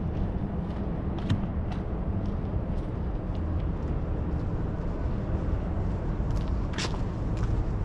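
Steady low rumble of downtown street traffic, with scattered short clicks and taps. The loudest is a brief sharp noise about seven seconds in.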